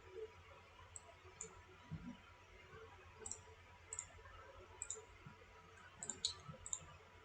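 Faint, irregular clicking from working a computer's mouse and keys, about a dozen light clicks spread over several seconds, over a low background hum.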